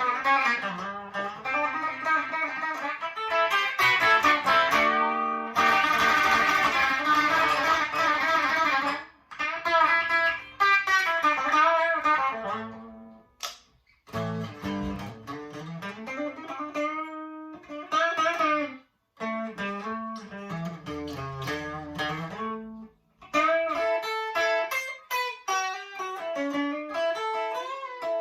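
Chibson Les Paul Custom copy electric guitar played through a Marshall DSL40 combo amp on its clean channel: ringing chords, then single-note lines, with a few short breaks between phrases.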